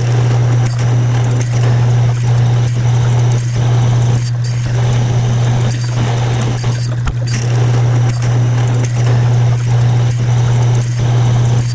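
Metal lathe running with a steady low hum as a twist drill in the tailstock chuck bores into the end of a spinning metal bar, the cutting adding a rough, uneven grinding noise above the hum.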